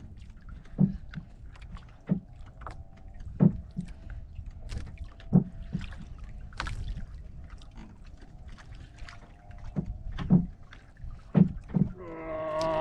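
Water slapping and knocking against the hull of a small wooden outrigger boat, in irregular thumps every second or two, over a low wash of sea noise.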